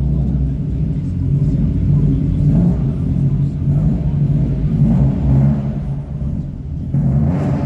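Subaru STI's turbocharged flat-four engine running with a steady low rumble, its revs rising briefly a few times.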